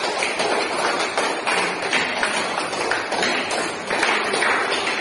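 A small group of people clapping: dense, steady applause after a winner is announced.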